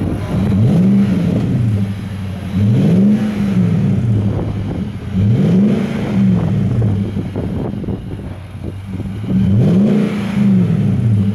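Infiniti QX80's 5.6-litre V8 blipped four times from idle through its tuned exhaust system, each rev rising and falling over about a second, with idle between.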